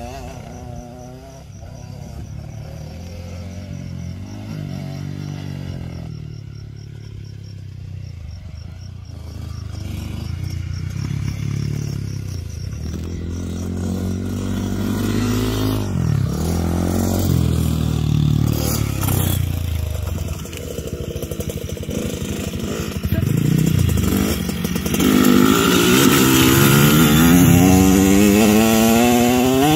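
Dirt-bike engines revving and easing off, the pitch rising and falling with throttle and gear changes. The engine gets louder in the last few seconds as a Kawasaki KX65 two-stroke rides up close.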